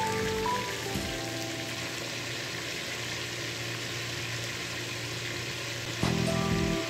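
Chicken pieces frying in hot oil in a metal pot, a steady sizzle. Background music plays over it for about the first second and returns near the end.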